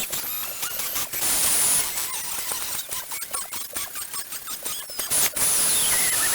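Spindle of a DIY CNC milling machine cutting a workpiece: a steady high-pitched whine over crackling cutting noise, with two louder stretches, one about a second in and one near the end.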